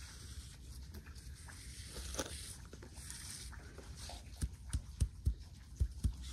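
Plant-fibre cordage being twisted and worked between the hands, a soft rustle and scratch of fibres with small clicks. In the second half comes a run of about seven dull low thumps.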